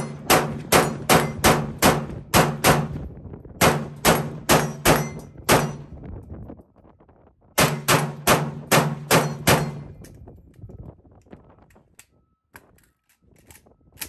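Galil ACE Gen2 rifle with a Dead Air Xeno muzzle brake firing three strings of rapid semi-automatic shots, about three a second, with short pauses between strings. After the third string, only faint clicks remain.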